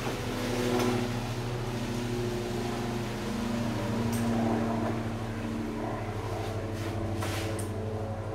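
An engine running steadily at low speed, its pitch wavering slightly, with a couple of brief noises about a second in and near the end.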